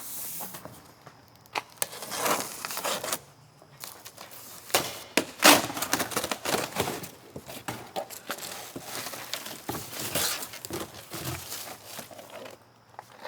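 Packaging being torn off and crumpled around a new rolling tool box on its pallet, with irregular rustling and tearing and scattered knocks; the sharpest knock comes about halfway through.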